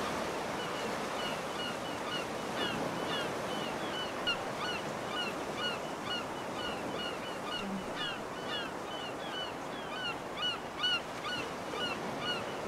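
Ocean surf washing steadily, with many birds calling over it in short, hooked chirps that repeat a few times a second.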